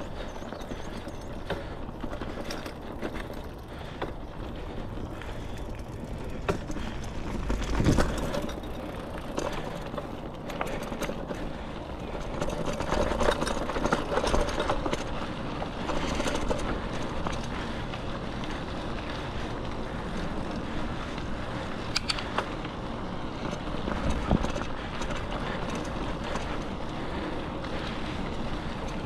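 Riding along a dirt trail: steady wind buffeting the microphone, with rattling and a few sharp knocks over rough ground. The loudest knock comes about eight seconds in.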